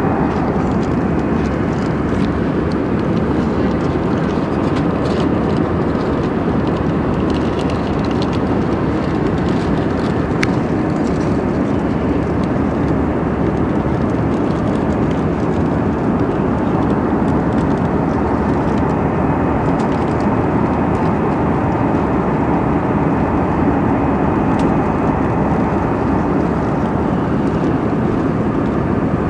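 Airplane in flight heard from inside the passenger cabin: a steady, even rumble of engines and rushing air that holds constant throughout.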